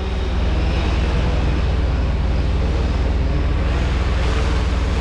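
Steady low rumble of a running vehicle with an even hiss above it, fading in at the start.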